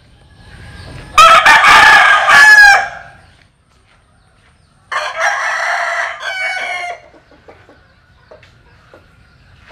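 American Asil gamecock rooster crowing: a loud crow about a second in, lasting about two seconds, then a second, quieter crow about five seconds in.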